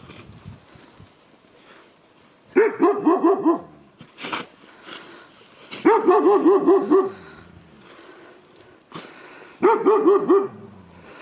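German Shepherd-type dog barking in three quick runs of short barks, each run about a second long: one a few seconds in, one in the middle and one near the end.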